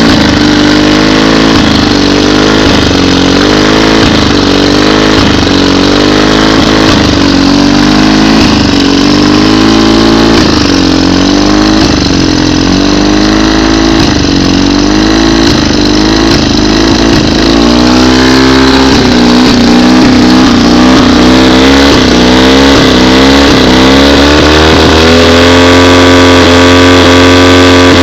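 Johnson outboard engine running with an unsteady, wavering note broken by repeated brief stumbles, the 'coughing' whose cause is unknown. The stumbles come every second or two at first, then the engine settles into a steadier, lower-pitched run for the last several seconds.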